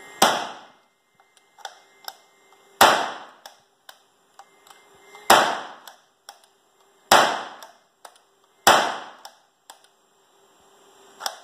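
3D-printed revolver-type 37mm launcher fired five times in succession, each sharp bang followed by a short ringing decay, about two seconds apart. Lighter mechanical clicks come between the shots.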